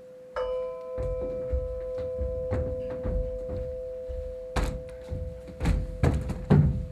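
A steady two-note drone rings on. About a third of a second in, a bell-like tone is struck and rings out. It is followed by irregular low thuds and sharp knocks that come faster and louder in the last couple of seconds.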